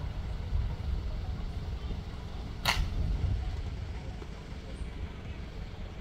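Steady low rumble of wind on the microphone, with one short, sharp crack about two and a half seconds in.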